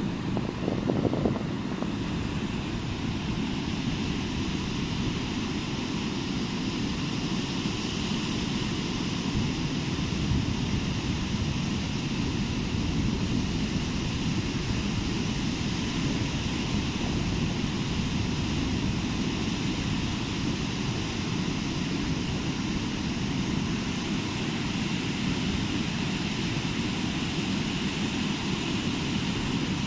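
Steady low rumble of surf breaking on a sandy beach, with wind noise on the microphone.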